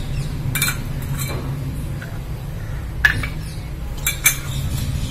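Stainless steel and glass kitchen bowls clinking as they are handled and set down on the counter, about five separate clinks, the loudest a little after three seconds in and near four seconds in. A steady low hum runs underneath.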